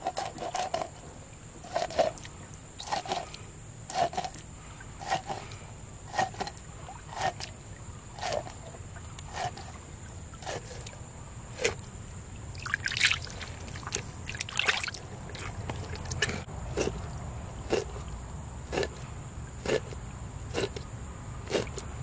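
Kitchen knife scoring a whole fish crosswise on a plastic cutting board: a short knock each time the blade cuts through the scaled skin to the board, about one cut a second.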